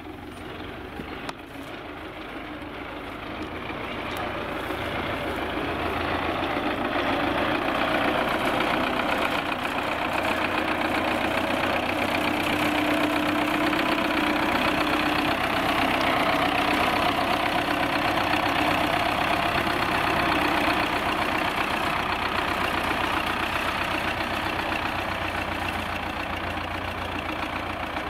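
Diesel engine of a wheeled tractor with a front-loader bucket running steadily as the tractor works. It grows louder over the first several seconds as the tractor comes close, stays loud through the middle, and eases off slightly near the end as it moves away.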